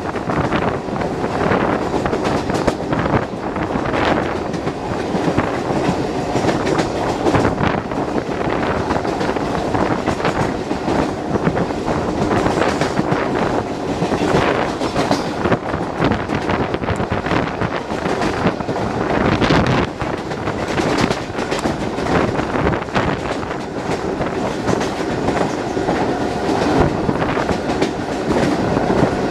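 Siemens EMU suburban local train running at speed, heard from its open doorway: a steady rumble with wheels clattering over the rail joints.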